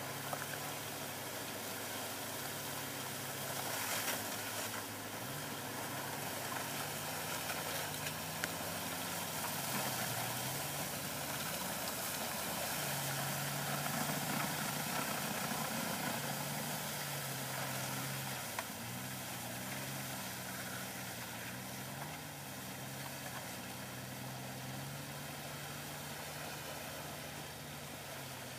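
Engine of a Jeep Grand Cherokee on American Track Truck rubber track conversions, working through slush. Its pitch rises and falls again and again with the throttle, over a steady hiss.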